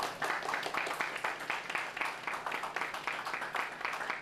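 A crowd applauding, many hands clapping in a steady run of claps.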